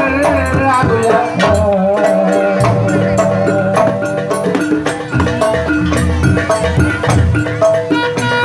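Live Javanese jaranan accompaniment: gamelan metallophones playing a steady melody over drums and percussion.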